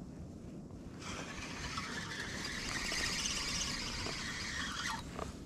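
Daiwa Certate 2500 spinning reel being cranked to retrieve braided line: a steady whirring hiss that starts about a second in and breaks off near the end.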